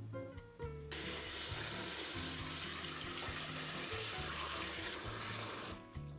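Water running steadily into a sink, starting about a second in and stopping about five seconds later.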